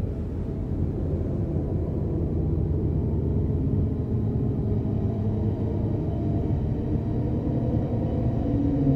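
A steady low rumbling drone with faint held tones above it: the unexplained 'strange sound' reported over the city.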